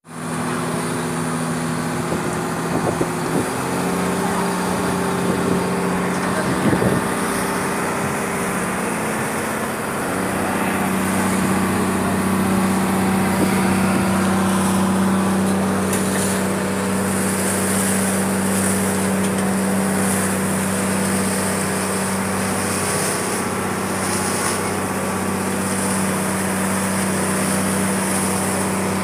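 Engine of a motorized outrigger boat (bangka) running steadily under way, heard from aboard. Its pitch picks up a little about four seconds in and again about ten seconds in.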